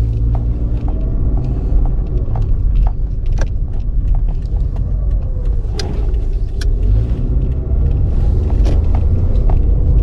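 2006 Toyota RAV4 heard from inside the cabin while driving: a steady low engine and road rumble, with scattered light clicks and rattles. The engine is being test-driven for an intermittent misfire and is running better than the mechanic expected.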